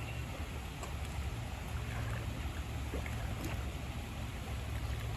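Steady low rumble with a faint wash of moving water from the sea lion pool.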